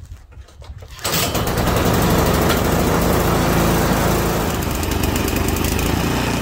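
Troy-Bilt Storm 2420 snowblower's single-cylinder engine being pull-started in the cold. It catches on the first pull about a second in and then runs steadily.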